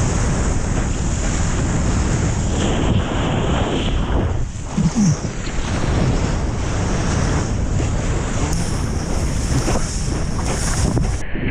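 Strong wind buffeting a GoPro's microphone over the wash and crash of surf around a surfer in the water.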